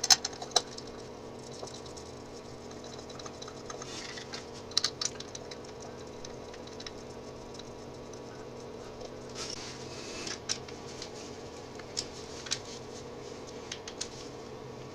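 Scattered light clicks and taps of hand tools on small metal parts as the oil filter cover is fitted back onto a motorcycle engine, over a steady low hum.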